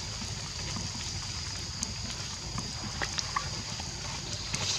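Outdoor background: a steady high-pitched hum over a low rumble, with scattered faint clicks and short chirps.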